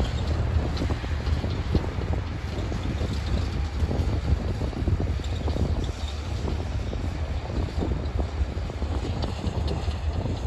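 Wind buffeting the microphone over the low rumble and scattered clatter of a freight train of tank cars on the tracks.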